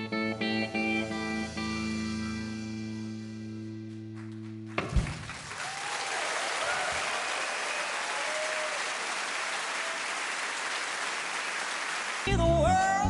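A live band's final guitar chord is held, then cuts off about five seconds in as the audience breaks into applause with a few cheers. Near the end loud music starts up again.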